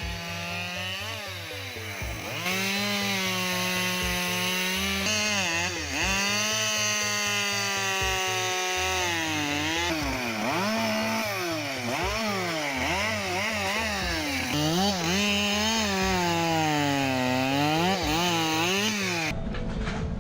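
Husqvarna 572 XP two-stroke chainsaw cutting wood, its engine pitch repeatedly dipping and climbing back up.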